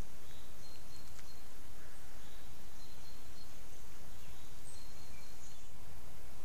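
Steady hiss of a camera-trap microphone and forest ambience, with a few faint, short, high bird chirps now and then.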